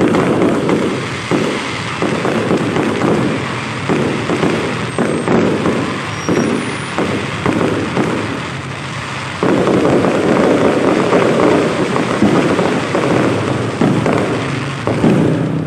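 Fireworks going off in a dense, continuous barrage of rapid bangs and crackling, growing louder about nine seconds in.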